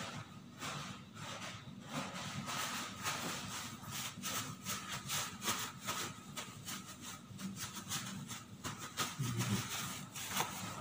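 Paper tissue rustling and crinkling in a dense run of soft crackles as it is rubbed over a chrome tap and over hands.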